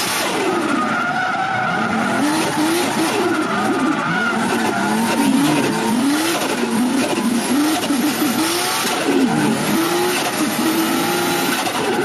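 Race-car engine sound effect, revving up and down over and over without a break.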